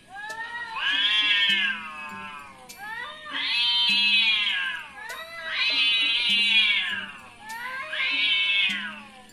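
A cat meowing: four long, drawn-out meows in a row, each rising and then falling in pitch.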